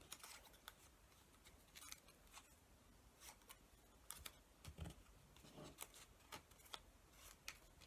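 Scissors snipping craft paper into small pieces: faint, irregular snips and clicks, with a soft thump on the table a little before the midpoint.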